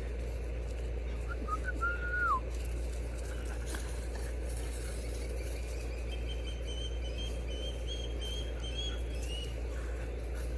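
A French bulldog puppy whining: a short, high whimper that falls in pitch about two seconds in, then a faint, thin, wavering whine for a few seconds later on, over a steady low hum.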